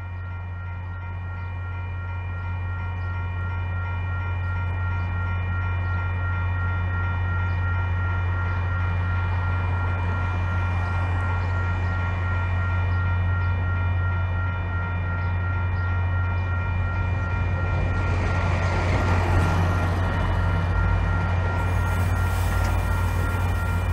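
MBTA commuter rail train standing at the platform, its diesel locomotive running with a strong steady low drone and a steady whine of several high tones, getting louder over the first several seconds. In the last few seconds a rushing hiss builds over it.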